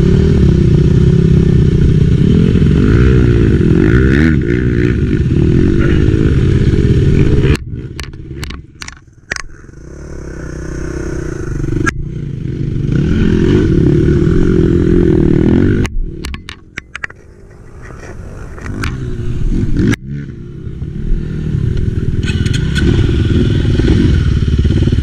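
Enduro dirt bike engine running while riding, dropping off sharply twice and building back up. Knocks and clatter come through in the quieter stretches.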